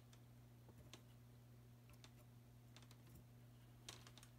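Near silence: a steady low electrical hum with a few faint clicks, the loudest cluster near the end.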